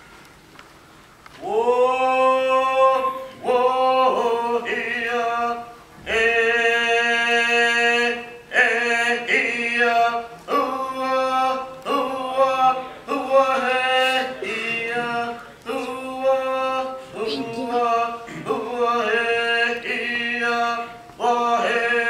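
A small group of men and women singing a song together in unison, with long held notes in phrases broken by short pauses. The singing starts about a second and a half in.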